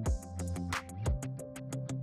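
Background music with a steady drum beat: kick drum and hi-hat ticks over a repeating bass line.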